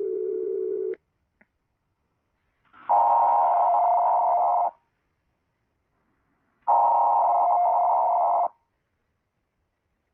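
Electronic emergency alert tones. A steady low tone cuts off about a second in, and after a pause come two separate long beeps of a higher, two-pitched tone, each just under two seconds, with silence between them.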